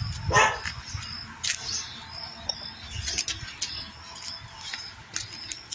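A dog barks once, sharply, about half a second in. Short high chirps repeat throughout.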